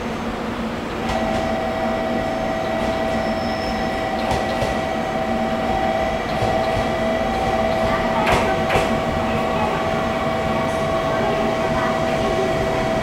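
JR Kyushu 813 series electric multiple unit running into a station platform, its rumble growing as it nears. A steady high two-note whine sounds from about a second in, and a couple of sharp clacks come about eight seconds in.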